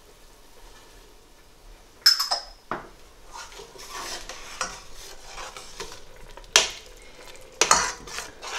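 Metal spoon stirring cumin seeds and salt into water with tomatoes and peas in a stainless steel saucepan. The spoon scrapes and knocks against the pot, with a sharp ringing clink about two seconds in and more knocks near the end.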